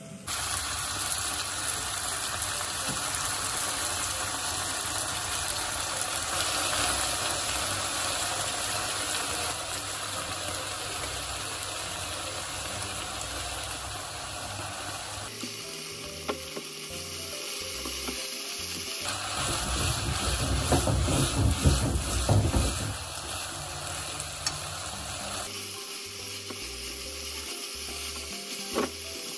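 Spaghetti with tuna and garlic sizzling in oil in a nonstick frying pan as the pasta water cooks off, stirred and tossed with a wooden spatula. The sizzle changes abruptly between shots, grows louder for a few seconds about two-thirds through, and a couple of sharp knocks come near the end.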